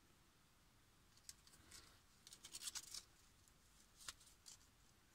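Faint crackling and a few sharp clicks from a strip of clear adhesive tape being pulled and handled, with the densest crackling a little past the middle.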